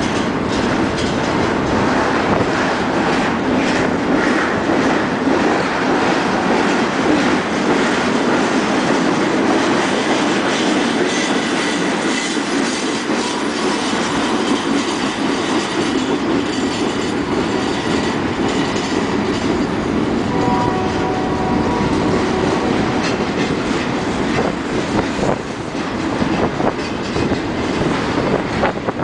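Empty double-stack well cars of a freight train rolling past, their steel wheels running on the rails with a steady, loud rattle.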